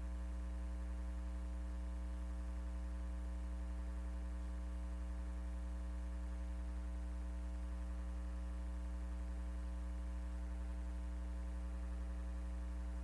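Steady low electrical hum with a faint buzz above it, unchanging throughout.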